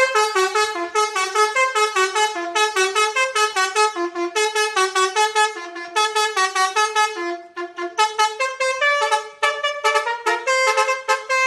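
Basuri telolet multi-tone horn playing a quick melody of short, bright horn notes, about three or four a second, stepping up and down in pitch. It breaks off briefly partway through and then carries on with the tune.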